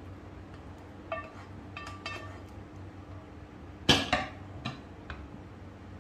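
A spoon clinking lightly against a ceramic plate three times, each clink ringing briefly. About four seconds in comes a louder clatter of kitchenware, then two soft taps.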